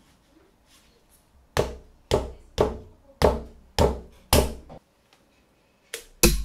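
A mallet striking a wooden wedge into the top of an axe handle to lock the head on, in sharp knocks with a dull thud. Six even blows come about twice a second, then after a short pause two more near the end.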